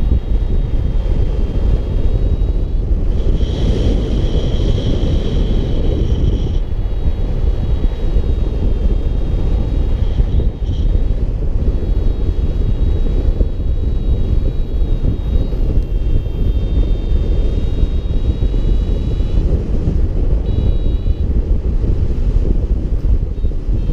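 Wind rushing over the microphone of a camera on a paraglider in flight, a dense steady rumble. Faint thin high tones run through it, stronger for a few seconds about three seconds in.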